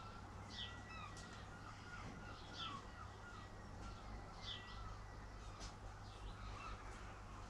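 Birds calling: short, curved calls repeated about once a second, faint, over a steady low hum.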